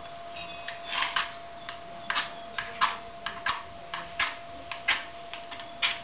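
About a dozen sharp, irregular clicks and short scrapes, roughly two a second, from hands working the fireplace's glass door handle and a matchbox.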